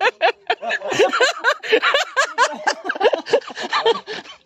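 Several men's voices shouting and laughing at once, loud and excited, with short yelps overlapping and no clear words.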